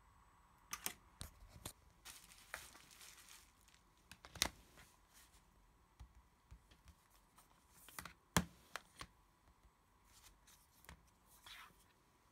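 Hands working on a Samsung P7510 tablet during a battery swap: scattered small plastic clicks and taps, with a second-long scrape about two seconds in. Two sharp clicks stand out, about four and eight seconds in.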